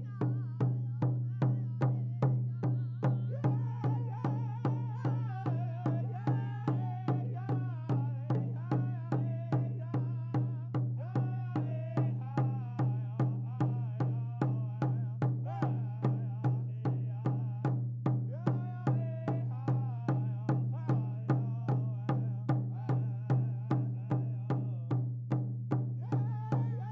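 Powwow drum group performing a men's traditional dance song: singers carrying a wavering, high-pitched melody over a large drum struck in unison with a steady, even beat.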